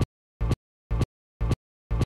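Short identical bursts of sound repeating evenly about twice a second, each cut off sharply with dead silence between: a stuttering, looped soundtrack.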